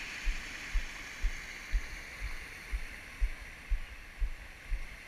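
Water pouring out of a corrugated metal culvert into a stream, a steady rushing. A deep, evenly spaced thump comes exactly twice a second over it.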